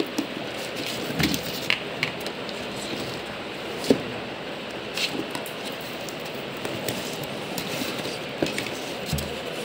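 Scissors cutting and scraping through packing tape along the edges of a cardboard chess-set box, giving irregular snips, scrapes and small knocks over a steady background hiss; the sharpest click comes about four seconds in.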